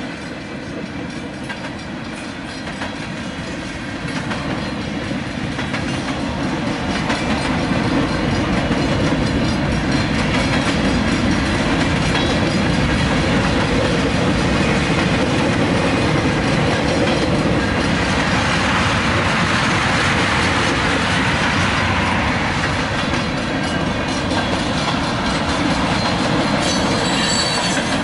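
Freight train cars rolling past on the rails in a steady stream, the noise growing louder about four seconds in and then holding steady.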